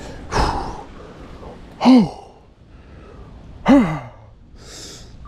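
A man's breath and voice: a sharp exhale, then two short voiced sighs about two seconds apart, each rising and falling in pitch.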